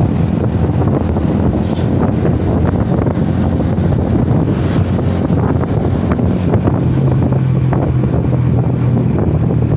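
Wind buffeting the microphone of a motorcycle riding at speed, with the steady hum of its engine underneath.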